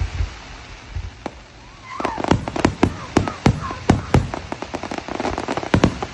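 Fireworks going off in a rapid, irregular string of bangs and cracks, sparse for the first couple of seconds, then coming thick and fast, several a second.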